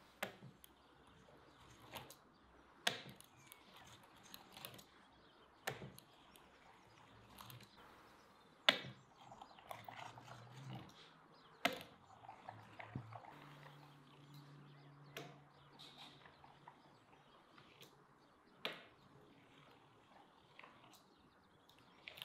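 Fluted pastry wheel rolling through a thin sheet of dough on a wooden board, with sharp light taps on the board every second or two.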